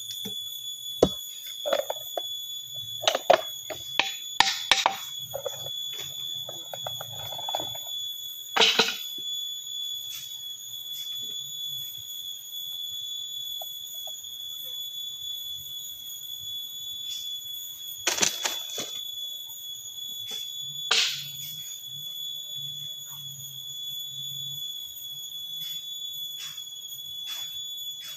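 A steady high-pitched whine that does not change, with scattered sharp knocks and clicks, several in quick succession in the first few seconds and a few louder ones later.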